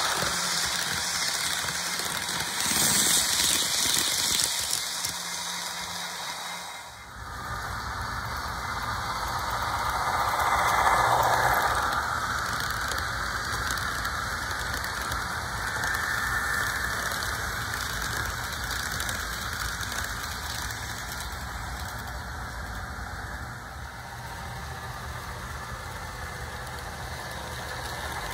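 HO scale model passenger train running, its locomotive's LokSound decoder playing diesel engine sound through a small onboard speaker. The sound swells about 11 seconds in as the train passes close.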